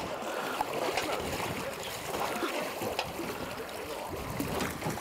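Steady wind and water noise on an open fishing boat, with faint voices in the background and a few light knocks.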